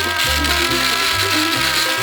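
Background music: a held, sustained lead melody over a bass line that steps between notes.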